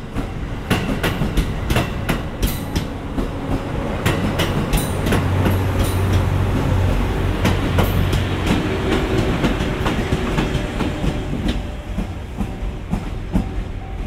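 Train running past on jointed track, its wheels clicking in a quick, even rhythm over the rail joints, with a steady low hum growing louder from about four seconds in as the heavier part of the train passes.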